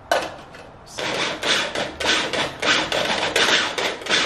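Small electric food chopper run in short pulses, its blades chopping onion, about two pulses a second from about a second in. A sharp click comes just before the pulsing.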